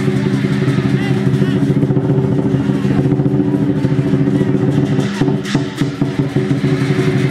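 Lion dance percussion of drum, cymbals and gong playing a fast, continuous beat, over a steady low drone.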